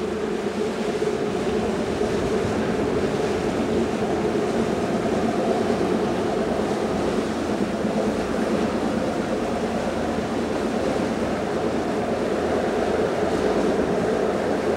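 AB Yachts AB 92 Open motor yacht's diesel engines running in a steady low drone as it cruises by, over the rush of its bow wave and wake. It grows slightly louder as it passes.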